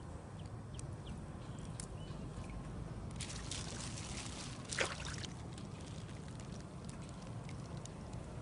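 Water splashing and trickling, with a sharper splash about five seconds in, over a steady low rumble.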